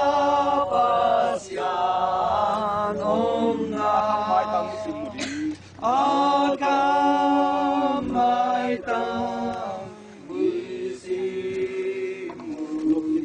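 A group of voices singing a hymn unaccompanied, holding long notes phrase by phrase.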